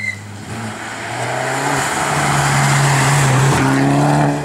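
Rally car engine accelerating hard towards and past the spectator, its pitch climbing over the first two seconds and then holding, growing louder until it peaks about three to four seconds in.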